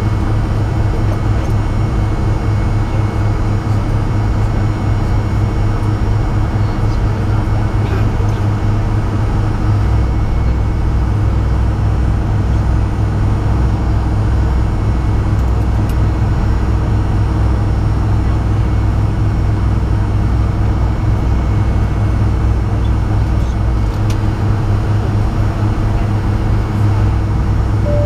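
Cabin sound of a Fokker 100 taxiing, heard from a seat beside its rear-mounted Rolls-Royce Tay turbofans: a steady drone at low taxi power, a deep hum with a few held whining tones over it.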